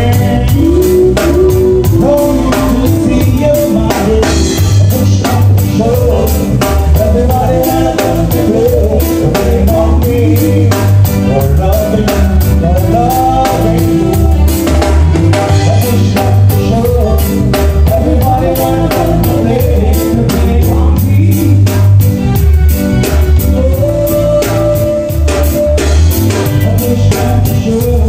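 Live Caribbean band music: a drum kit keeping a steady beat under a strong low bass pulse, with a vocalist singing the melody.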